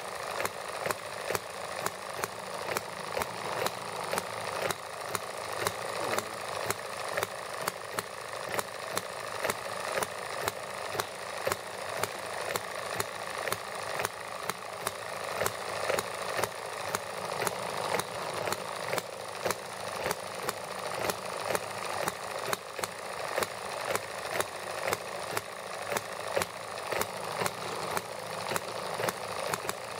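Small model gasoline engine, a toy-sized single-cylinder engine running on white gas, running steadily with a sharp regular pop from each firing stroke, a few times a second.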